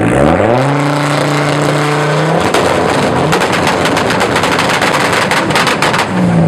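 Tuned turbocharged car engine revved up and held, then a rapid string of sharp pops and bangs from the exhaust, about five or six a second, as the antilag system fires, followed by the revs swinging again near the end.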